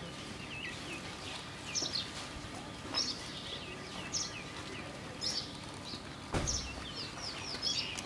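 Weaver birds chattering: quick high chirps broken by short buzzy rattles, repeating every second or so. A single sharp knock comes about two-thirds of the way through.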